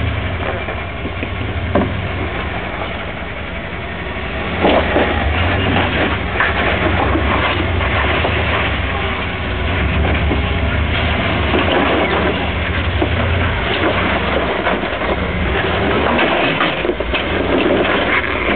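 Early Ford Bronco's engine running at low revs, with scattered knocks and scrapes over the steady rumble.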